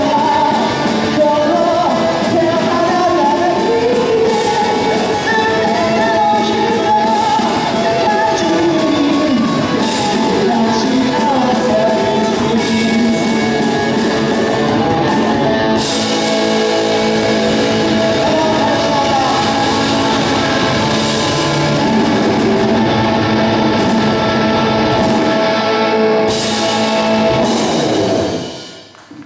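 Live rock band playing through amplifiers and a PA: electric guitars, bass and drum kit with a singer. The song ends just before the close, the sound falling away over about a second.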